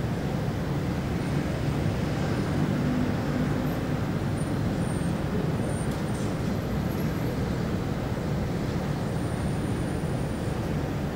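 Steady city road traffic: an even low rumble of passing vehicles, with a few faint high-pitched tones about halfway through and again near the end.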